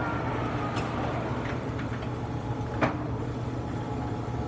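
Turnmaster engine lathe running under power, its spindle turning with a steady, quiet hum, a sign of good spindle bearings. One sharp click about three seconds in.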